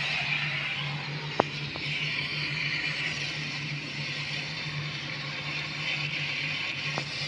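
Air from a fan blowing through a URSA Air Alu-Alu duct, an aluminium-faced glass-wool duct: a steady airy hiss over a low hum. A single sharp click comes about a second and a half in.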